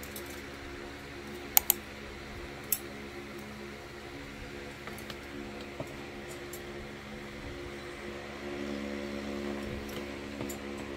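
Wooden clothes hangers clicking against each other and the closet rail as clothes are pushed along: two sharp clicks close together about a second and a half in, another a second later, then fainter ones. Under them runs a steady mechanical hum.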